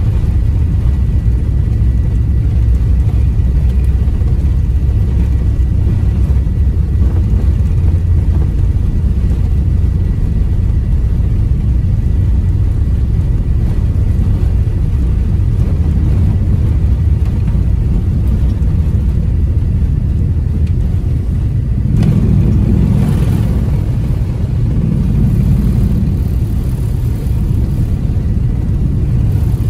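Airbus A380-800 takeoff roll heard from inside the passenger cabin: a loud, steady low rumble of the four jet engines at takeoff power and the wheels on the runway. A sharp click sounds about three quarters of the way through, and the rumble shifts slightly after it.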